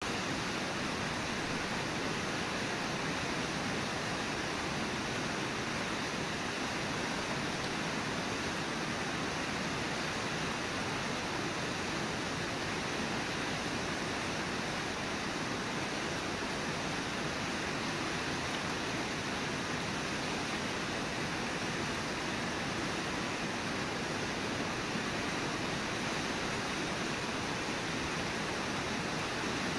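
Whitewater of a wide, low river waterfall pouring over its lip, a steady, even rush of noise.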